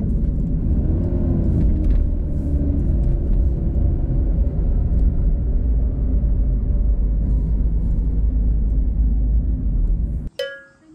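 Car driving: a steady low road rumble that cuts off abruptly about ten seconds in.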